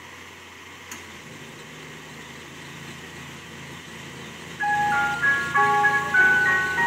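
Ice cream truck's jingle starting up about two-thirds of the way in, a loud chiming tune of short, stepping notes, over a low steady hum.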